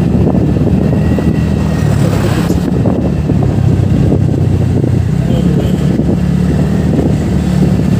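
TVS NTorq 125 scooter's single-cylinder engine running steadily under way, with wind rushing over the microphone.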